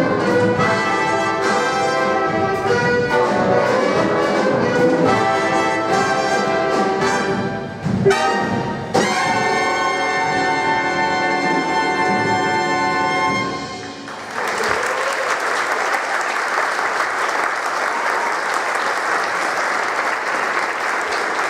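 Jazz big band of saxophones, trumpets, trombones, piano, guitar, upright bass and drums playing the closing bars, with two sharp accents about eight and nine seconds in leading into a final held chord. The chord stops about two-thirds of the way through and the audience breaks into applause.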